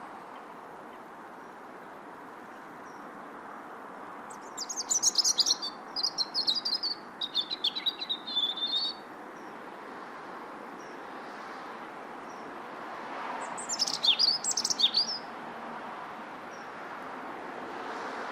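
A bird singing two bouts of rapid, high chirps: the first starts about four seconds in and runs for about four seconds, the second is shorter and comes near thirteen seconds in. A steady background hiss runs underneath.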